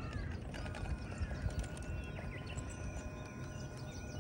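Small RC scale crawler (RC4WD Trail Finder 2 SWB) inching up a rock slab, with a faint steady electric motor whine and a few clicks of tyres and chassis on rock. Birds chirp throughout over a low rumble of wind on the microphone.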